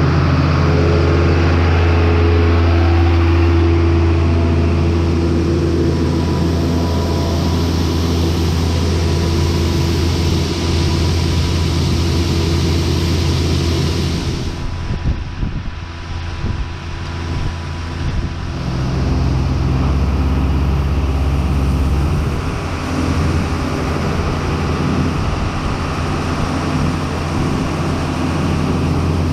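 Tractor engine running steadily under load. About halfway through the note dips and wavers for a few seconds, then settles again at a slightly lower pitch.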